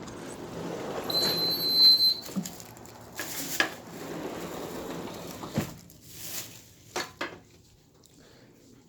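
A door being opened and shut, with a run of knocks, clatters and a brief squeak, over the fading hum of the running air conditioner's outdoor unit. It goes much quieter near the end.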